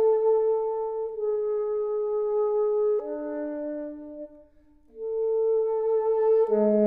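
Unaccompanied alto saxophone playing a slow melody in long held notes, one note at a time, with a brief pause for breath after about four seconds and a drop to a low note near the end.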